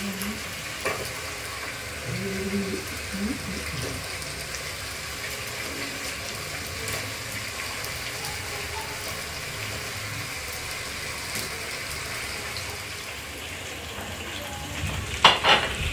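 Steady watery hiss of kitchen work, with two sharp knocks close together near the end.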